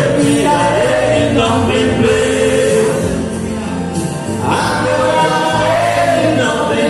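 Male gospel singing into a microphone over instrumental accompaniment: a sung melody carried on steady sustained low notes.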